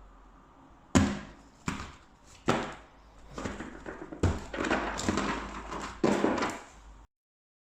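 A lens box and its packaging being handled: several sharp knocks and taps with rustling in between, cutting off suddenly near the end.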